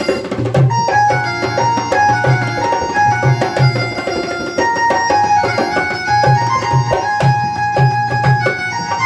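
Instrumental Indian-style music: a melody of long held notes over a steady hand-drum beat.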